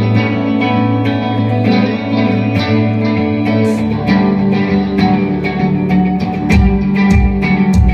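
A band's song starting: electric guitar playing chords through effects, with heavier low notes coming in about two-thirds of the way through.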